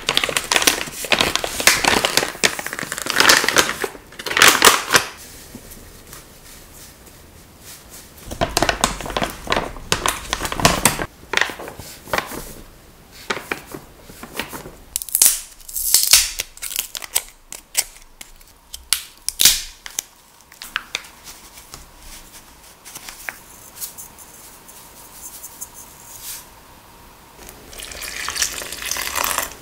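Paper and plastic flour bags rustling and crinkling in irregular bursts as they are handled and flour is tipped into a mixing bowl. Near the end, water is poured from a steel pitcher into the bowl in a steady stream.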